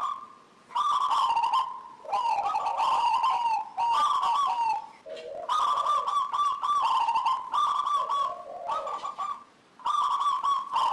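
Zebra dove (perkutut) singing: about six phrases of quick, staccato coos, each one to two seconds long, separated by short gaps.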